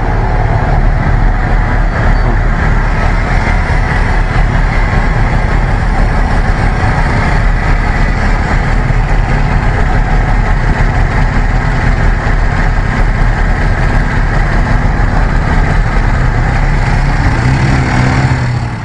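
Loud, steady motor traffic noise, with vehicle engines running and no break.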